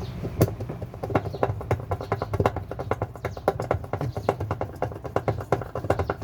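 Rapid, irregular clicking and knocking of hard objects, several taps a second, over a low steady hum.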